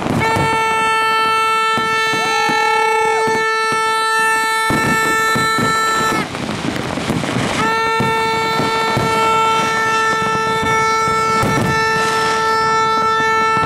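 A red plastic horn blown in two long, steady blasts of about six seconds each, with a short gap between them. A second, higher horn sounds briefly about two seconds in, and fireworks pop and crackle in the background.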